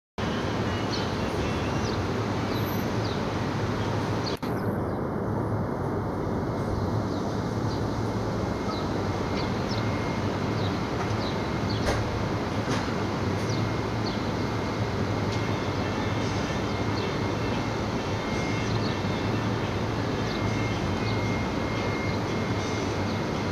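A steady rushing noise with a low rumble, scattered with faint short high chirps, and a brief dip in level about four seconds in.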